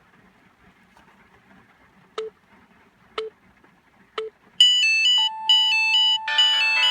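Sound effects from a sound-effects app: three short beeps about a second apart, like a countdown, then a bright electronic chime melody starts, with a fuller chord joining in near the end.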